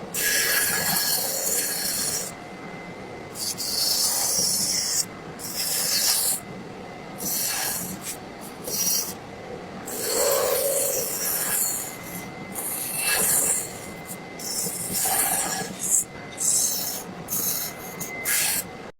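A tool scraping and rasping across wood in repeated, irregular strokes, each lasting about a second or two, with short pauses between them.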